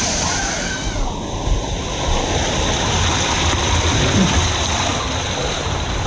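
Steady rush and splashing of water in a water-park splash pool and slides, with a deep rumble underneath.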